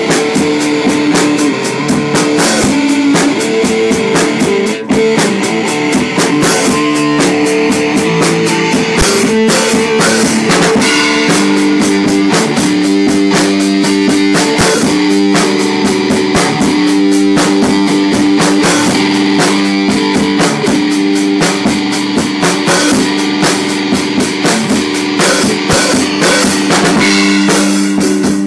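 Loud rock music: electric guitar holding sustained chords over a steady drum-kit beat.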